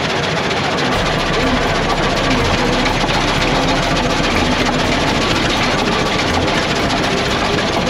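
International Harvester Titan 10-20 tractor's twin-cylinder horizontal kerosene engine running, heard up close, with a fast even beat of about four strokes a second.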